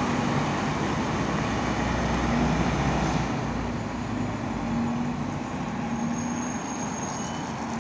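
IVECO Urbanway 18 m articulated city bus pulling away from a stop and driving off, its engine and running noise steady, then easing slightly as it moves away, over street traffic noise.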